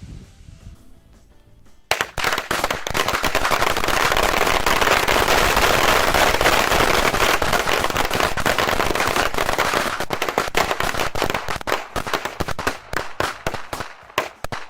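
A big mass of about 500 firecrackers going off together: a sudden start about two seconds in, a dense unbroken crackle of bangs for several seconds, then thinning into scattered single bangs near the end.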